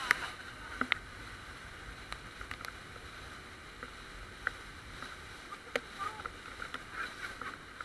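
Steady rush of water and wind past an inflatable banana boat being towed at speed, with scattered sharp splashes and knocks.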